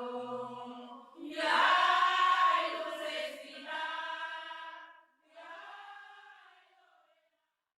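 Singing in a few long, held phrases, each quieter than the last, with the final one fading out about seven seconds in.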